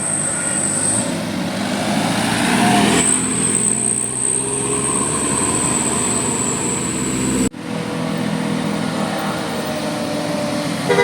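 Road traffic: a motor vehicle's engine running as it passes, loudest about two and a half seconds in. The sound breaks off abruptly about seven and a half seconds in and traffic noise resumes.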